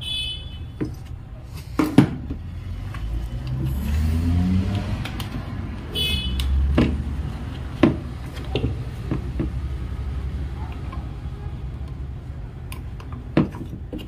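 Road traffic: a vehicle engine rumbling and swelling twice, with a short horn toot at the start and again about six seconds in. Over it come sharp knocks and clicks from the plastic housing and parts of an opened induction cooktop being handled, loudest about two and eight seconds in.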